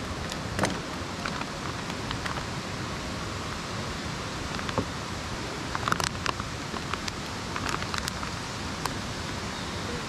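Chive pancake (buchujeon) frying in oil in a pan: a steady sizzle with scattered pops and crackles.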